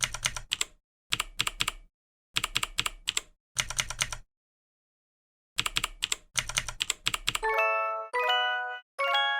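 Computer keyboard typing in six short runs of rapid keystrokes, with brief silent gaps between them. Near the end come three short chime tones, each higher than the last.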